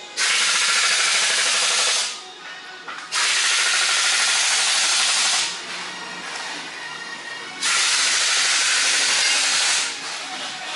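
Loud hissing in three bursts of about two seconds each, each starting suddenly, with lulls of one to two seconds between.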